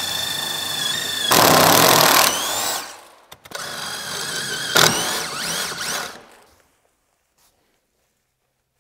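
Drill boring Kreg Jig pocket holes into a timber stair tread, in two runs. Each run is a high motor whine that grows louder as the bit cuts into the wood, then winds down with a falling pitch.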